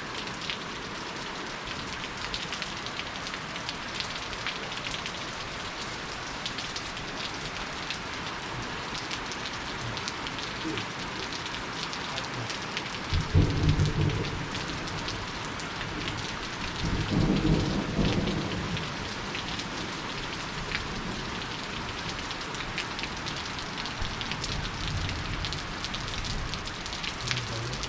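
Steady rain with individual drops ticking, and two low rumbles of thunder a few seconds apart about halfway through.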